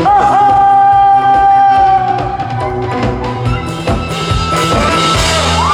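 Live trot song ending: a male singer holds a long note over the band, then the band plays the closing bars with drums and bass, stopping near the end.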